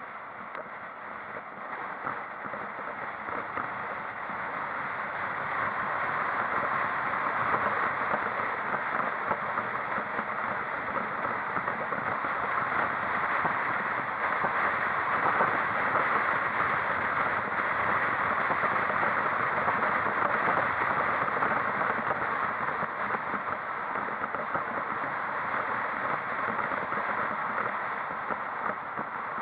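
Steady rushing road and wind noise of a vehicle on the move. It builds over the first several seconds as the vehicle gathers speed, then holds, easing slightly near the end.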